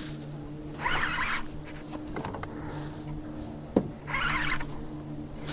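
Fishing reel's drag buzzing in two short bursts, about a second in and again near four seconds, as a hooked fish pulls line off the reel.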